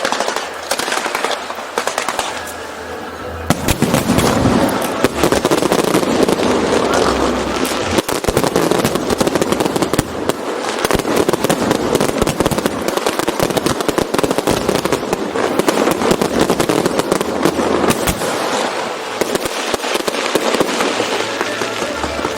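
Fireworks display: dense, rapid crackling and popping bursts going off one after another, easing briefly about two seconds in before picking up again.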